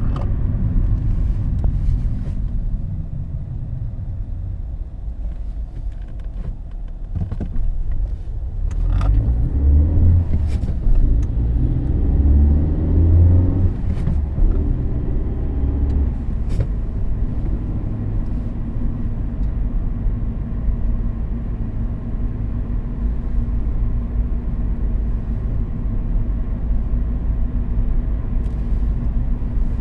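Car driving: a steady low rumble of engine and road noise. The engine note rises for several seconds from about nine seconds in as the car speeds up, then settles back into a steady drone.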